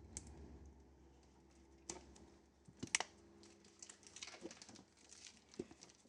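Faint rustling and crinkling of packaging being opened by hand, with a few light taps and clicks, the sharpest about three seconds in.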